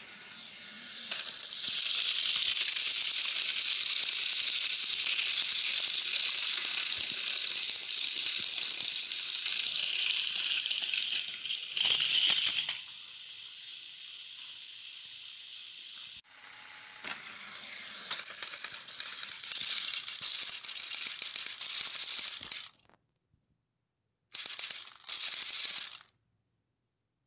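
Battery-powered toy train engines running on plastic track: a steady high whirring rattle of their small motors and gears. It drops away for a few seconds midway and cuts off abruptly twice near the end.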